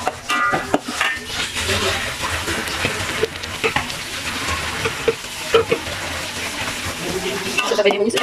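Chilli sambal paste frying with a steady sizzle in an aluminium wok, stirred and scraped by a metal spatula that clicks and scrapes against the pan again and again. The paste is being cooked down until it reduces.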